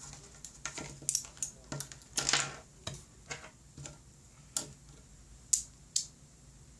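Small magnetic toy-pen segments clicking and snapping together as they are handled: irregular sharp clicks, with a longer cluster of rattling clicks about two seconds in and two sharp snaps near the end.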